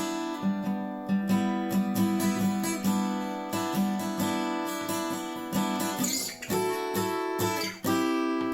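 Washburn WD11SCE acoustic-electric guitar being played: strummed and picked chords with ringing notes. There is a short break near the end before a new chord.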